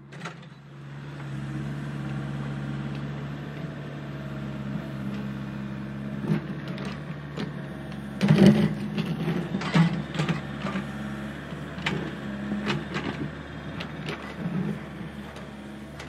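Small electric motors of a remote-control toy excavator running with a steady hum, with sharp clicks and plastic clatter on top, busiest about halfway through.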